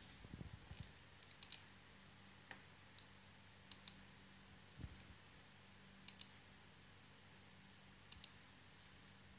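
Computer mouse buttons clicking in quick pairs: four double-clicks about two seconds apart. A few softer taps come near the start and a dull thud about halfway, over a faint steady hum.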